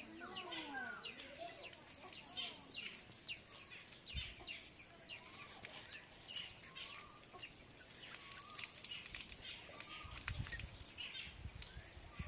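Faint outdoor farmyard sounds: hens clucking and small birds chirping over and over, with a low rumble coming in near the end.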